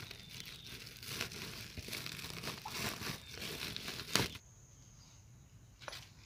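Woven plastic sack crinkling and rustling as hands grip and fold its rim around a planted tree's roots, with a sharp crackle about four seconds in. After that it is much quieter.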